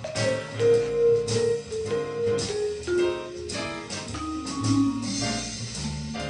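Trixon vibraphone played with yarn mallets: a melody of ringing notes that sustain and overlap one another, with low notes sounding underneath.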